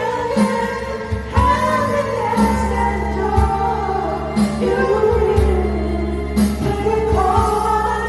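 A woman singing a melody over a music backing track, with a beat landing about once a second.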